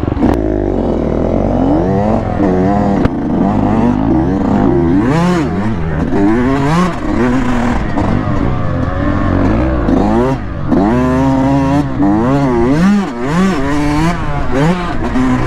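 Dirt bike engine being ridden hard, revving up and dropping back again and again, rising and falling in pitch every second or two.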